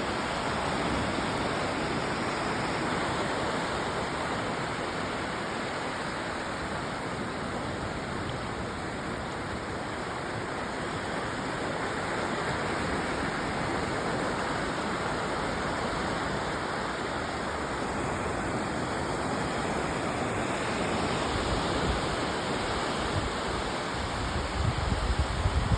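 Steady rush of running water, an even hiss-like roar with no pauses. Near the end, a few low rumbling bumps come in over it.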